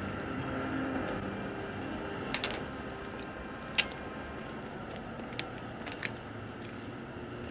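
A few irregular sharp metallic clicks of a car door lock being worked at, the loudest about four seconds in, over a steady hiss. The music that comes before dies away in the first second.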